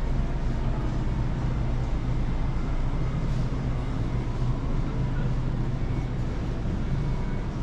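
Steady low mechanical drone with a hum held at a few low pitches, unchanging throughout.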